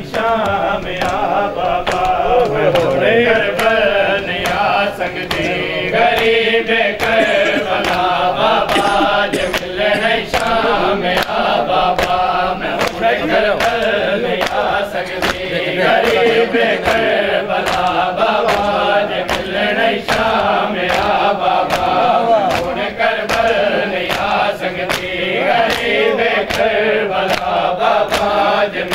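Men chanting a mourning lament (noha) together, kept in time by the steady slaps of hands striking bare chests in matam, about one and a half strikes a second.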